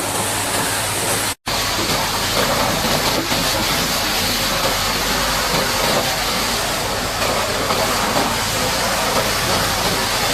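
High-pressure water jet spraying mud off a Caterpillar D8T bulldozer: a loud, steady hiss of spray with a steady low engine hum beneath, cutting out for an instant about a second and a half in.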